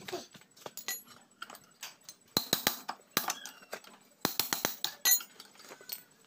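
Metal tools and engine parts clinking and tapping in short clusters of sharp clicks, mostly in the second half, as a Yamaha Jupiter Z motorcycle engine is taken apart by hand.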